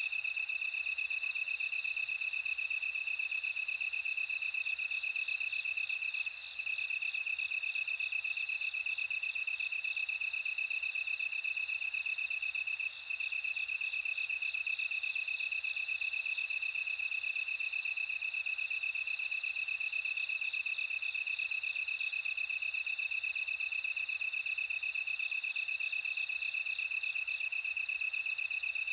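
Bell crickets singing: a steady, pulsing trill runs on without a break, and a higher, ringing chirping song rises over it in two spells, the first from about a second in and the second from about halfway through.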